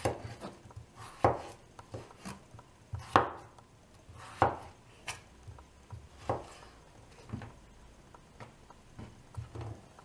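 Victorinox Fibrox santoku knife slicing through raw potato, each cut ending in a knock of the blade on a wooden cutting board. There are about ten cuts, roughly one a second and unevenly spaced.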